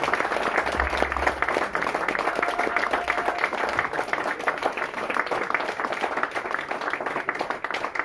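Audience applauding at the end of a song, many hands clapping and slowly dying down.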